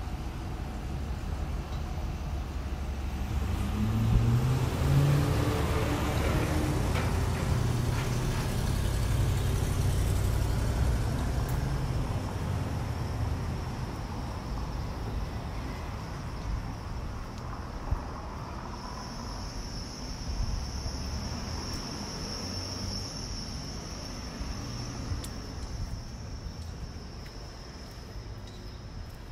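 A motor vehicle accelerating along the street, its engine note rising in pitch a few seconds in and then fading, over a steady low traffic rumble. Later a faint, steady, high-pitched whine.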